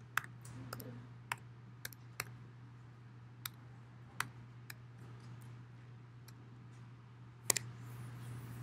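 Scattered sharp clicks and taps at irregular times, the loudest pair near the end, over a steady low hum.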